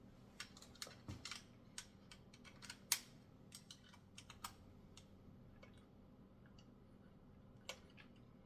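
Faint, irregular light clicks and taps of small metal parts and hand tools being handled while assembling a bike repair stand, thickest in the first few seconds with the sharpest click about three seconds in, then a lone click near the end.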